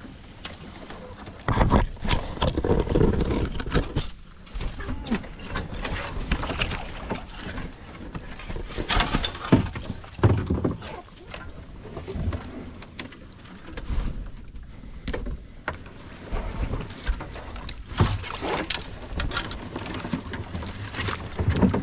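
Kayak being paddled through water: irregular splashing paddle strokes and low thumps.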